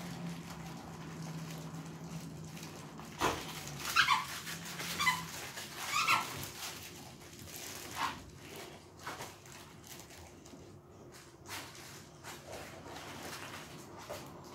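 Boxer dog playing with a toy, giving a few short high whimpers about four to six seconds in, among knocks of the toy against the floor.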